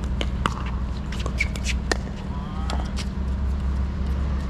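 Pickleball paddles hitting a plastic ball: sharp pops at irregular intervals, a fraction of a second to about a second apart, over a steady low hum. A brief squeak comes about halfway through.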